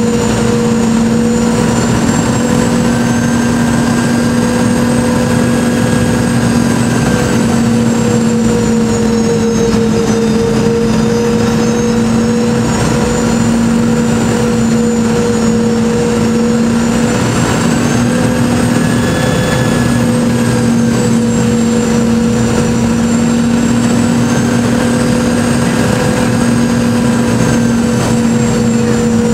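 Boeing 717 jet engines, Rolls-Royce BR715 turbofans, heard from inside the passenger cabin during the descent to landing. A loud, steady drone with a strong low hum, and higher whining tones that drift slowly down and back up about ten seconds in and again around twenty seconds.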